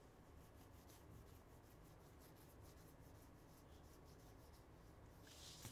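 Near silence: faint rubbing and rustling of trading cards being handled, over a low steady room hum.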